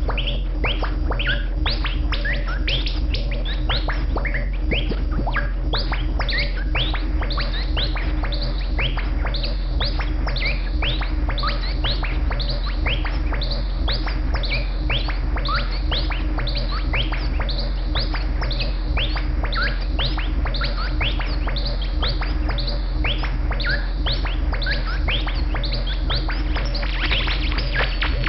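Buchla and Eurorack modular synthesizer playing a dense stream of quick, bird-like falling chirps, several a second, over a steady low drone. Near the end a fast buzzing pulse and a high steady tone come in.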